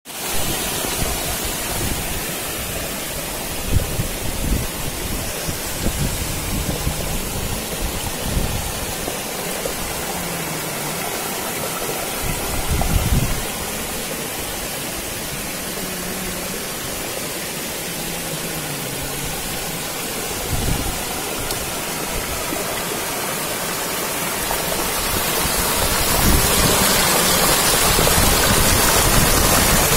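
Steady rush of running water in a flooded rice field, getting louder over the last few seconds, with a few short low thuds scattered through it.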